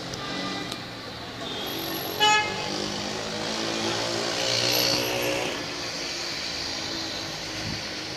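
Urban street ambience with traffic noise, and one short horn toot about two seconds in, the loudest sound.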